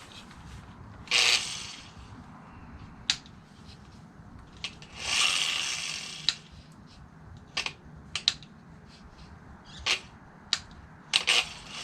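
Clicks and knocks of a corded electric grinder being handled and switched on while plugged into a portable power station, with two short hissing bursts. The grinder does not run up: the power station does not have enough power to drive it.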